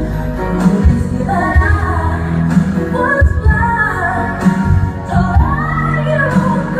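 Pop song with a female singing voice over a bass line and a beat.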